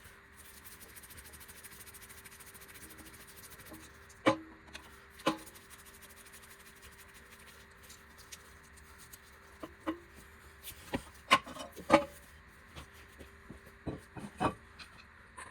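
Workshop handling noises: a soft scraping in the first few seconds, then a string of scattered knocks and clunks as hard parts are picked up and set down, the loudest two or three coming in quick succession about two-thirds of the way in. A faint steady hum runs underneath.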